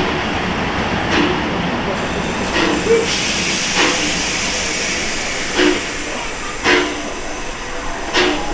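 Pt47 steam locomotive and its coaches rolling slowly through a station, with a steady hiss of steam and irregular knocks and clanks about once a second. A higher steam hiss joins about three seconds in.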